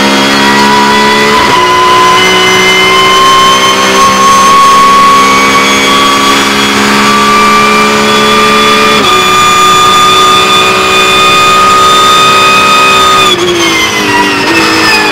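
Porsche 911 GT3 Cup race car's naturally aspirated flat-six, heard from the cockpit, pulling hard at full throttle with its pitch climbing through two quick upshifts. About 13 seconds in the revs drop sharply as the driver lifts and brakes, with short blips on the downshifts.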